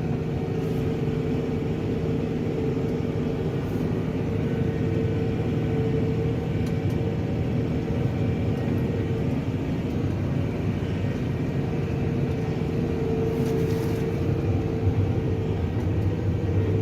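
Tractor engine running steadily under load while pulling a four-furrow plough, with a constant drone and no change in speed.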